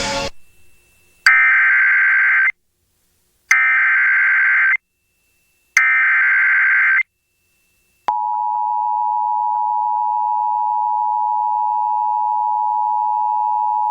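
Emergency Alert System broadcast: three short bursts of digital SAME header data, each just over a second long and about two seconds apart, then the steady two-tone EAS attention signal (853 and 960 Hz) coming on about eight seconds in. This is the alert tone that opens a severe thunderstorm warning.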